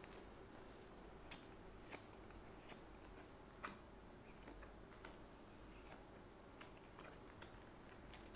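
Faint, scattered clicks and soft slides of Weiss Schwarz trading cards being handled, flicked through and laid down one by one.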